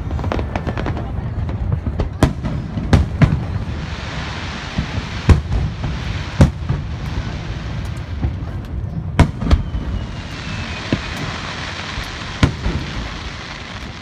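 Fireworks display: aerial shells bursting in a dozen or so sharp bangs at irregular spacing, with stretches of hissing crackle between them and a low rumble underneath.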